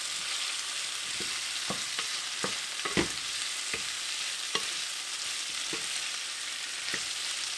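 Chicken and vegetables sizzling steadily in a hot skillet while a wooden spatula stirs them, knocking against the pan about eight times, loudest about three seconds in.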